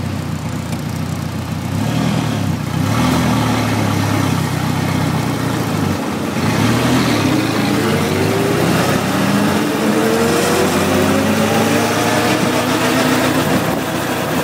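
Engine of the early Brasier racing car accelerating. It grows louder about two seconds in and its pitch climbs. The pitch dips briefly about six seconds in, then rises slowly again.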